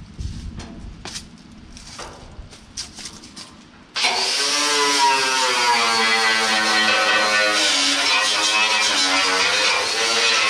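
Angle grinder with a wire wheel cutting in hard against the rusty steel body of a 1932 Ford coupe about four seconds in, stripping rust. It runs loud and steady after faint clicks, its pitch sagging and recovering as it is pressed into the metal.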